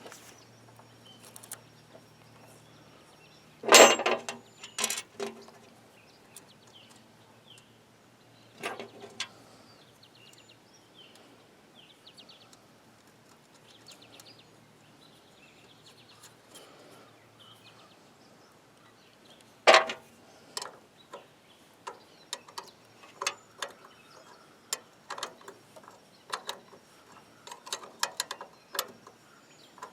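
Scattered sharp clicks and knocks of hand tools on metal while a wire is connected on a winch solenoid pack. The loudest knocks come about four and twenty seconds in, followed by a run of lighter clicks near the end. Faint bird chirps can be heard underneath.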